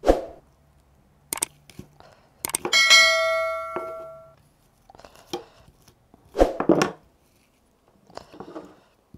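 A bright bell-like ding sounds about three seconds in and rings down over a second or so: the sound effect of a subscribe-and-notification-bell animation. Around it come a few sharp knocks and scrapes of a knife working a mackerel on a wooden cutting board.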